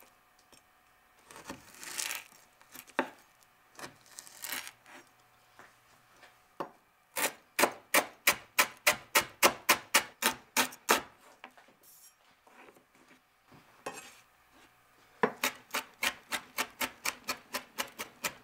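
Chef's knife mincing lemongrass on a cutting board: quick, even knocks of the blade on the board, about three or four a second, in two runs with a short pause between. A few softer scraping cuts come first.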